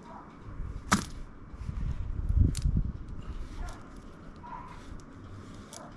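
Handling noises: a sharp click about a second in, then low thumps and rustling with another click.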